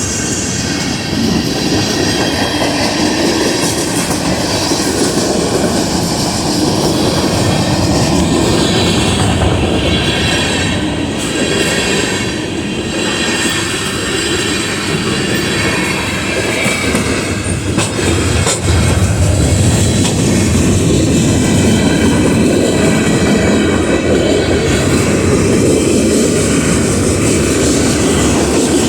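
Freight train rolling steadily past at close range, its cars clacking over the rail joints with a thin squeal from the wheels.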